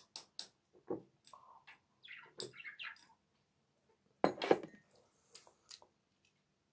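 Quiet sipping and swallowing of milk from a glass mug: scattered small slurps and clicks, then a brief louder noise a little past four seconds in as the mug is lowered.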